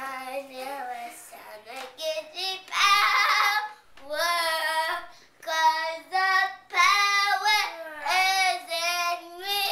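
A young girl singing unaccompanied: a run of short sung phrases on held notes, with brief pauses between them.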